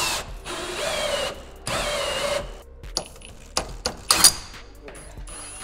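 Cordless drill spinning a hole saw through the bottom of a plastic diesel fuel tank, in two bursts of cutting over the first two and a half seconds, the motor's pitch wavering under load. After that come scattered clicks and knocks, with a sharp rattle about four seconds in.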